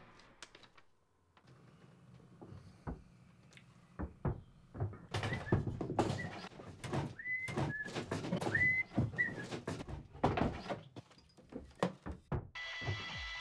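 Irregular knocks and thumps, with several short high squeaks among them in the middle. A steady hum with a held high tone starts near the end.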